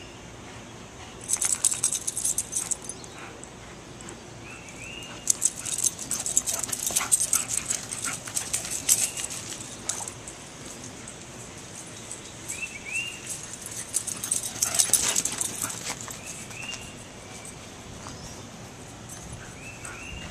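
A greyhound galloping and scrabbling through grass in three bursts of quick rustling and footfalls, with a few short, high whimper-like chirps between them.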